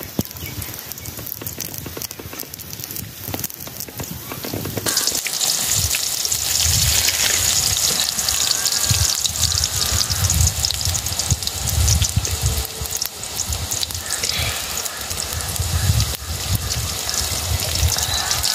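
Vegetables sizzling in hot oil in a wok over a wood fire, the hiss starting abruptly about five seconds in as they hit the oil and continuing steadily, with irregular low thumps underneath.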